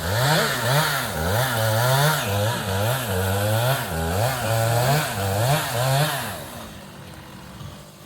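Chainsaw cutting into a tree trunk during felling, its pitch dipping and rising again about once a second as it bogs under load and recovers, then dying away about six and a half seconds in.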